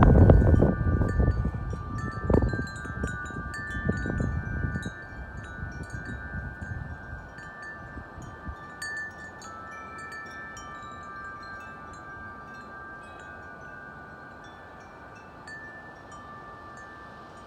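Wind chimes ringing in the wind, many long sustained notes overlapping with scattered light strikes. A strong gust buffets the microphone with a low rumble in the first few seconds, then dies away, leaving the chimes ringing on their own.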